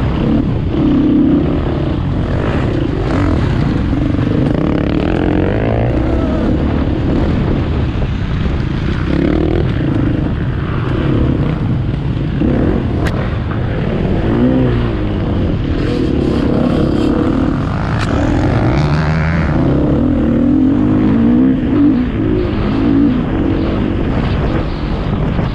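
KTM EXC 250 F four-stroke single-cylinder enduro engine running hard off-road, its pitch rising and falling again and again as the throttle opens and closes.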